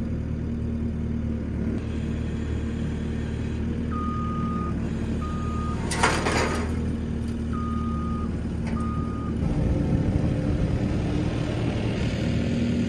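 Compact track loader's engine running steadily while its backup alarm beeps four times, in two pairs, as the machine reverses. About six seconds in there is a short burst of noise, and after about nine and a half seconds the engine note rises as the loader drives off.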